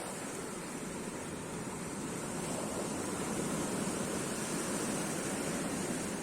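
Mediterranean sea waves washing on the shore, a steady rush that swells a little around the middle and then eases.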